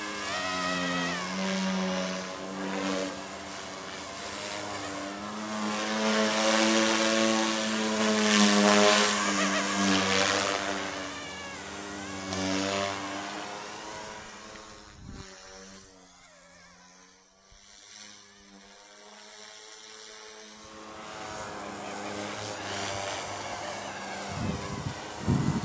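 Eachine E180 electric 3D RC helicopter flying on a single main rotor blade: a buzzing rotor whine that rises and falls in pitch as it manoeuvres. It fades to a low level around the middle, then grows loud again near the end.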